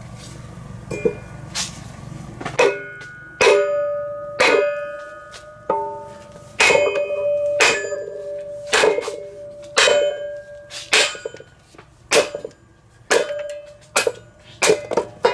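Repeated hatchet blows on a log standing in a Spalto kindling splitter, driving it down onto the splitter's blade, about one sharp knock a second. Most blows set the splitter's metal frame ringing.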